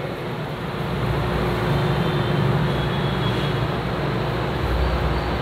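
Steady low background rumble, with faint squeaks of a marker writing on a whiteboard in the middle.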